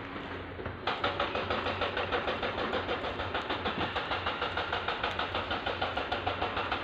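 An engine starts up about a second in and then runs at a steady, even chug of about six beats a second.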